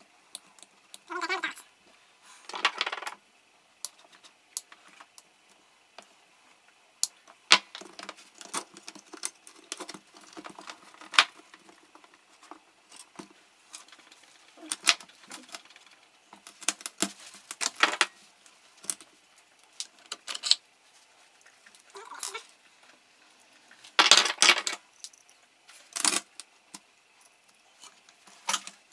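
Hand work on a workbench: small metal parts and tools clinking and knocking, with several short scraping rustles; no motor running.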